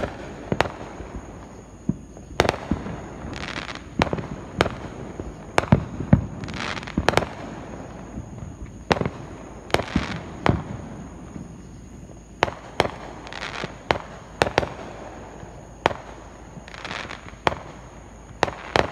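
Aerial fireworks going off: a series of sharp bangs at irregular intervals, about one or two a second, with several longer, noisier bursts among them.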